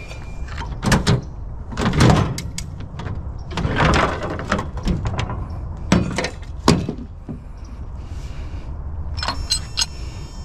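Hand tools working on a scrapped water heater: several sharp metal knocks and a few longer scrapes, then a quick run of small metallic clicks with a faint ring near the end.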